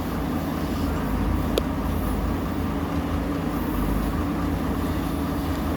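Heavy diesel engine of earth-moving machinery running steadily, with one short sharp knock about a second and a half in.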